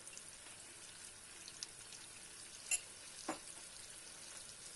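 Frozen tomato slices frying in melted butter in a pan on high heat: a faint, steady sizzle, with two sharp pops a little past halfway.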